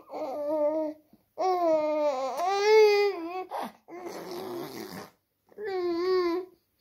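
A seven-and-a-half-month-old baby babbling while eating: several drawn-out vocal sounds, the longest about two seconds with a dip and rise in pitch, and a breathier one near the middle.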